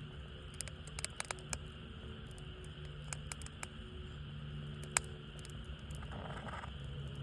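Wood fire crackling, with irregular sharp pops and snaps; the loudest pop comes about five seconds in.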